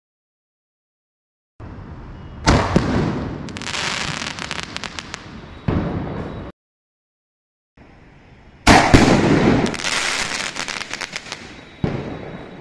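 A 1.75-inch sky shot firework going off: a sharp bang, then a couple of seconds of rapid crackling and a second bang. After a short silence, the same pattern comes again: a loud bang, dense crackling, and another bang near the end.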